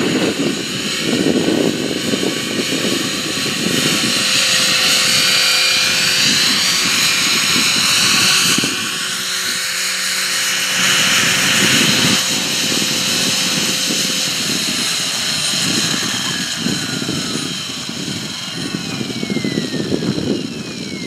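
Align T-Rex 500 electric RC helicopter's motor and rotor whining steadily in flight over a low gusty rumble. In the last few seconds the whine falls in pitch as the rotor spools down after landing.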